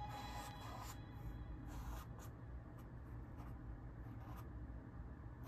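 A half-inch paintbrush stroking acrylic paint onto canvas: soft, scratchy brush strokes in separate swells, near the start, around two seconds in and again past four seconds, heard over a faint low hum.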